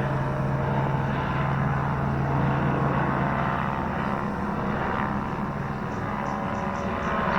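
Helicopter flying past overhead: a steady drone of engine and rotor, its low hum weakening about halfway through.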